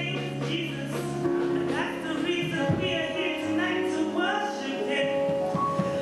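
Live gospel music with keyboard and guitar, and a voice singing over it through a microphone.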